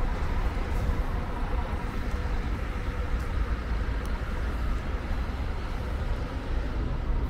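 Diesel coach bus running as it pulls slowly past: a steady low engine sound with a faint hum over it.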